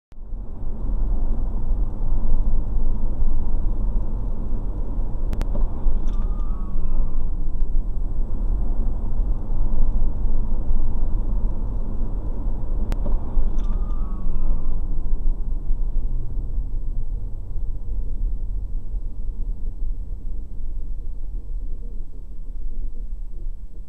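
Steady low road and engine rumble of a car heard through its dash cam microphone while driving, easing slightly in the last several seconds.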